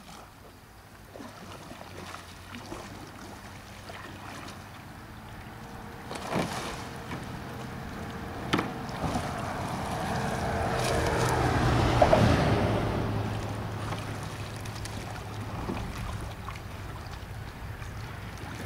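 Water splashing and sloshing around a Greenland kayak's hull and paddle as the paddler capsizes and rolls back up, with wind on the microphone. A couple of sharp splashes come in the middle, and a broad rush of noise swells and then fades.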